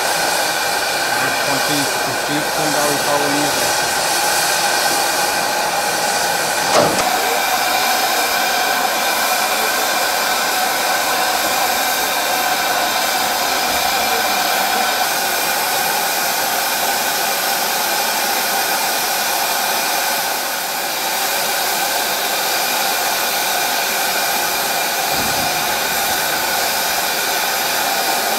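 Steam hissing steadily from a small steam tank locomotive at a standstill, with a few steady tones in the hiss. There is one short knock about seven seconds in.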